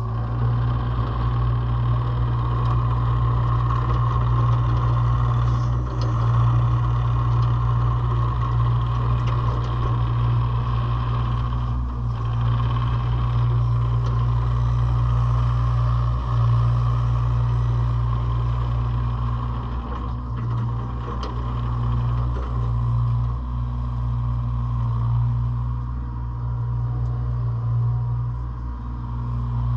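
Hitachi ZX33U-5A mini excavator's diesel engine running steadily, with short dips in level every few seconds.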